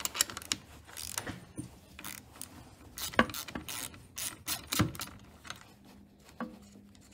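Quarter-inch-drive hand ratchet with a 10 mm socket clicking in irregular runs as the pivot bolt of a snowmobile brake lever is backed out, with a couple of louder knocks about three and five seconds in.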